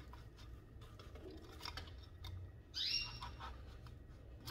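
Hands working through the gravel and roots in a clay orchid pot, with light scattered clicks of stone. About three seconds in comes a short, high chirp, the loudest sound.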